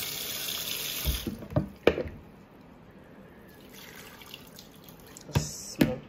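Water running for about a second as a little water is added for blending, followed by a few short knocks and, near the end, two louder clunks.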